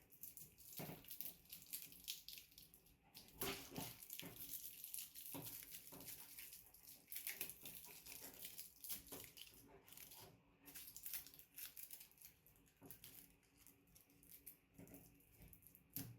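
Faint, irregular scraping, rustling and crinkling of a shielded network cable being stripped by hand, its outer jacket and foil shielding cut and peeled away.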